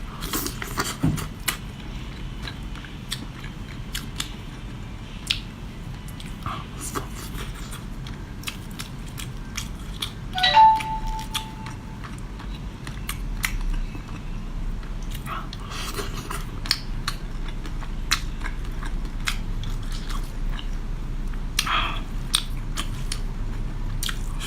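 Close-up eating of a sauce-braised bread crab: wet chewing and biting, with many short sharp clicks and crunches of shell throughout. A brief pitched sound comes about ten seconds in.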